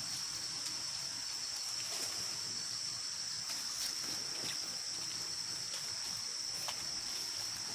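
Insects droning steadily at one high pitch, with a few faint clicks here and there.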